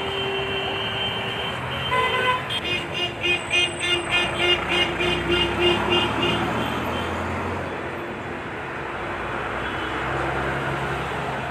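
Busy street traffic with vehicle horns: one horn held for about a second at the start, then a rapidly pulsing horn, about four beeps a second, for roughly four seconds, over the steady rumble of traffic.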